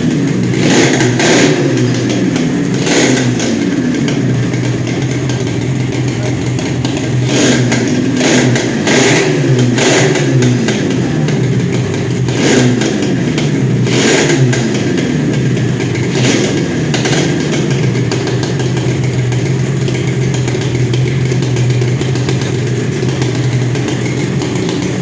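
Yamaha RD350's two-stroke parallel-twin engine running, blipped repeatedly so the revs jump and fall back, then settling to a steady idle for the last several seconds.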